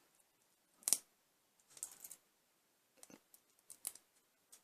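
Thin 3D-printed plastic support structure snapping and crackling as it is wiggled and broken away from the inside of a printed arch: one sharp snap about a second in, then scattered smaller clicks and crackles.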